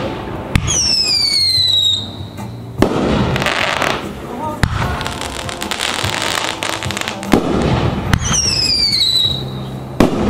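500-gram consumer firework cake firing: a string of about six sharp reports as shots launch and break, with bursts of noisy crackle after them. Two whistles fall in pitch, one just after the start and another about eight seconds in.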